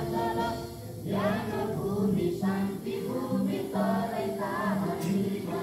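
A group of voices singing a song together over an accompaniment with a steady low note pulsing about twice a second.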